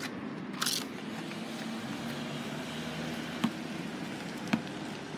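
A car passing on the street with a low steady engine and tyre noise. Two sharp thuds about a second apart come near the end: a basketball bouncing on the asphalt.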